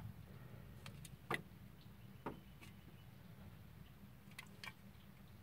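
Faint, scattered light clicks and taps of fingers handling an aluminium drink can, about five in all, over a low steady hum inside a car.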